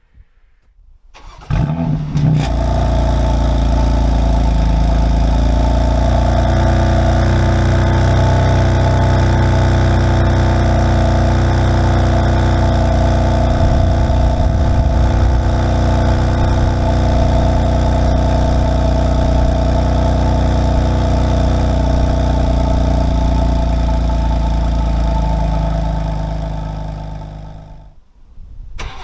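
Cold start of a BMW turbocharged straight-six through its exhaust. The starter cranks briefly and the engine catches and flares about two seconds in, then settles into a steady fast cold idle. The sound fades out near the end.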